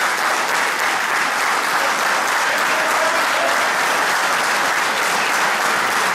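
Audience applauding steadily: dense, even clapping.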